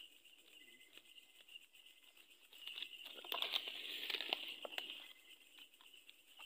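Leaves and twigs rustling and crackling as a person pushes through dense foliage, louder for a couple of seconds in the middle, over a steady high chirring of night insects.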